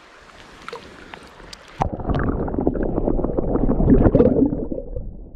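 Muffled sloshing and gurgling of river water stirred by hands holding a bass for release, heard with the microphone underwater; it starts about two seconds in and runs loud and crackly.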